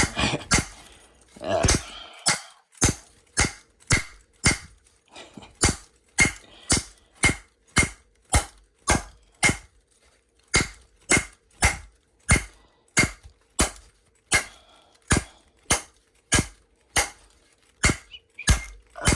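A locked Disecu padlock being struck over and over with a piece of wood: a steady run of sharp knocks, about two a second, starting about two seconds in.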